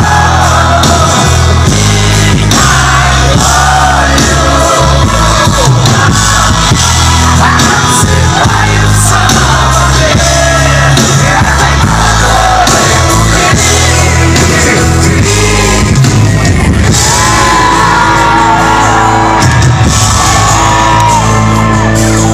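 Live band playing loudly with a singer, recorded from within the audience.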